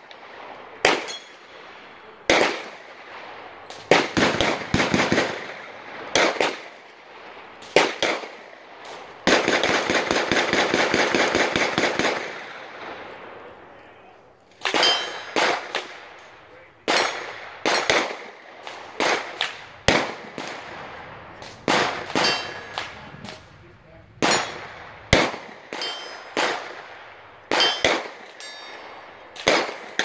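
Gunfire from several shooters at a shooting range: irregular single shots and quick strings of shots. A burst of very rapid fire lasts about three seconds near the middle.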